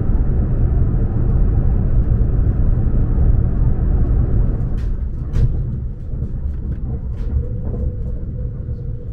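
Eurostar high-speed train running, heard from inside the carriage as a steady low rumble that eases a little in the second half, with a few faint clicks around the middle.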